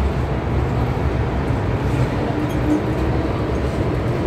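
MTR M-Train metro carriage in motion, heard from inside beside the doors: a steady low rumble of wheels on rail and running gear, with a faint brief whine a little past two seconds in.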